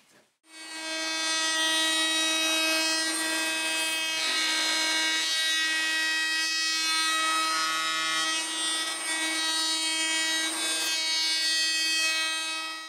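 Router table motor running at full speed with a steady high whine, its flush trim bit cutting solid Blackwood along an MDF template. The cutting noise swells and eases as the panel is fed.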